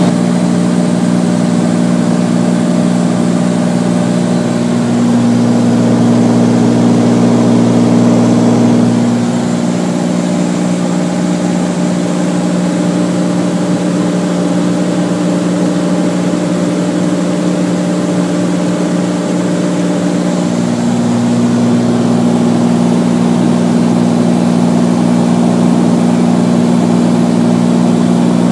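Beechcraft Bonanza's piston engine and propeller droning steadily in cruise, heard inside the cockpit over a steady rush of air. The low tone of the drone shifts slightly about nine seconds in and again around twenty-one seconds.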